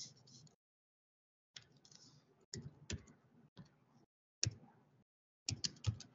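Computer keyboard typing: quick clusters of key clicks in several short runs, with brief silent gaps between them.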